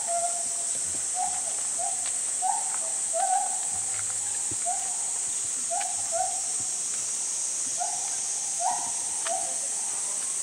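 Steady high buzzing of summer cicadas, over a repeated low hooting call from an unseen animal: short notes, often paired, about once a second.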